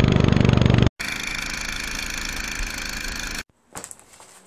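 Two spliced clips of small engines running. First a lawn mower engine runs loud with an even firing pulse. It cuts off abruptly about a second in and gives way to a steadier, somewhat higher-pitched engine sound, which also stops abruptly near the end. After that come quiet room tone and a few clicks.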